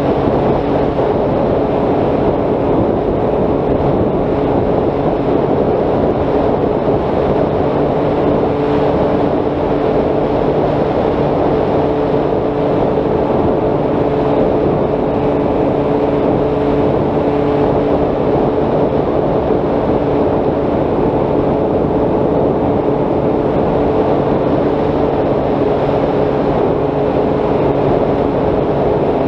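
Brushless electric motor and propeller of a Bixler 3 RC plane running at a steady pitch in flight, heard from the onboard camera with wind rushing over the microphone.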